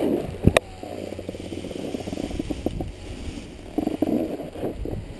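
Skis sliding and scraping over snow on a run downhill, a steady gritty rasp, with a single sharp knock about half a second in.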